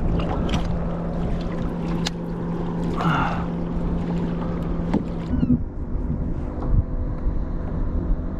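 Wind on the microphone and water against a kayak hull on the open water, with a steady low hum that stops about five seconds in and a few sharp clicks.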